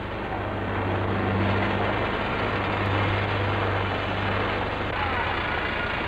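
Construction machinery engine running steadily, a low drone with a steady hum, as the crane lowers a steel reinforcement cage into the trench.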